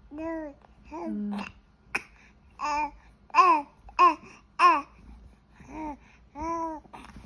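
An 85-day-old baby cooing and vocalising in about eight short, pitched coos. The three loudest come in quick succession in the middle. One sharp click sounds about two seconds in.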